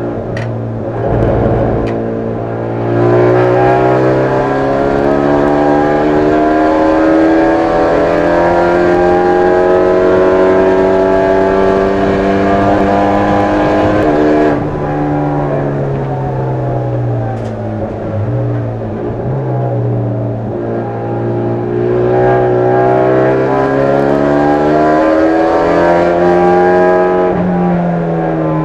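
Hyundai Genesis Coupe race car engine heard from inside the stripped cockpit, revs climbing steadily under acceleration, then falling sharply about halfway through. The revs climb again and fall off near the end, with a low thump about a second in.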